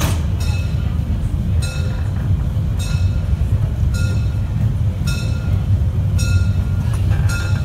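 Narrow-gauge steam train (Molli Railway, 1932-built steam locomotive and carriages) moving slowly out of a station, heard from a carriage: a steady low rumble with a short, ringing metallic clink repeating about once a second.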